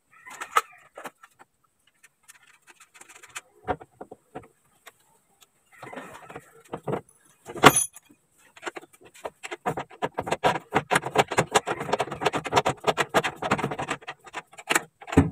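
Metal parts clinking and rattling as a power window regulator is worked into place inside a bare steel car door. Scattered clicks at first, one sharp metallic click about eight seconds in, then a fast run of rattling clicks over the last six seconds.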